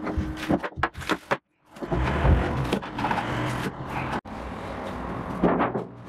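A thin aluminium refrigerator evaporator plate being handled and flexed, crinkling and clattering in quick clicks and knocks. The sound breaks off briefly about a second and a half in.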